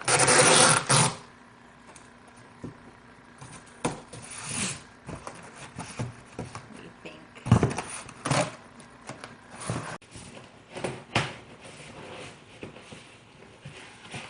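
Tape being pulled off the roll in a loud tearing screech about a second long, followed by scattered shorter rustles and knocks of cardboard being handled and taped.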